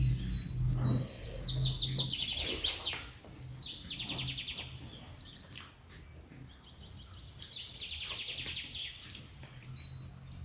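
Small birds singing, with three fast trills of rapidly repeated high notes, a second or so each, and scattered clicks.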